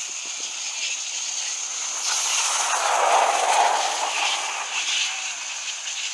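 Flying fox flyout: a steady high-pitched chatter with short squeaky bursts about once a second. A broad rushing noise swells and fades in the middle, about two to four seconds in.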